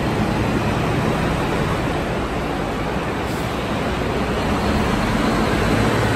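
Highway coach's engine running as it pulls away from the bay and drives off, heard as a steady rushing noise inside an enclosed underground bus terminal.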